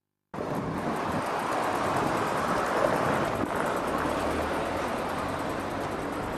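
Outdoor street noise with a passing vehicle: a rushing sound swells about two to three seconds in and slowly fades.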